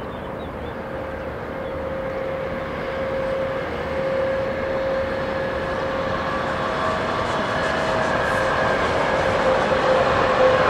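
Container freight train passing on the line, its rolling rumble growing steadily louder as the locomotive and wagons come by, with a steady tone held over the noise.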